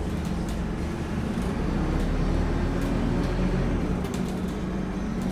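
Scania N230UD bus's five-cylinder diesel engine running with a steady low drone, heard from inside the lower-deck saloon, with scattered light clicks and rattles.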